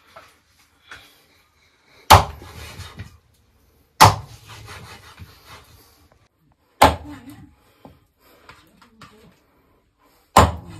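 Four heavy blows on wood, spaced about two to three and a half seconds apart, each followed by a brief scatter of fainter sounds.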